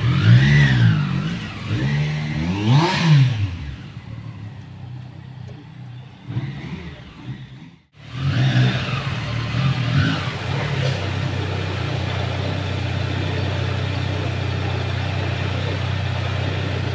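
Triumph Street Triple 765's inline three-cylinder engine blipped twice, each rev rising and falling in pitch. The sound cuts out briefly about eight seconds in; then the engine is blipped twice more and settles into a steady idle.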